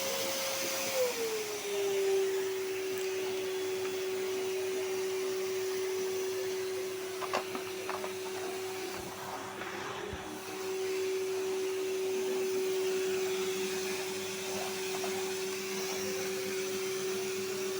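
Samsung vacuum cleaner running, its motor whine stepping down to a lower pitch about a second in and then holding steady. A few faint knocks come near the middle.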